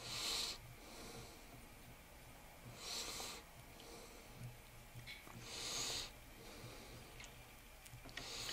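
A person breathing close to the microphone: four breaths about three seconds apart, with quiet in between.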